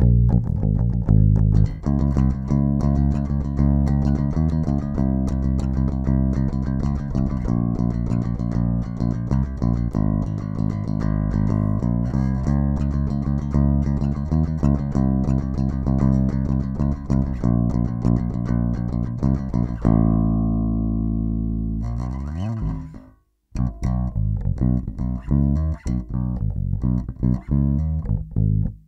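Epiphone Thunderbird Pro electric bass, recorded with a flat tone, playing a run of plucked notes. Near the two-thirds mark one note is held, then slides down in pitch and cuts off for a moment before the playing picks up again.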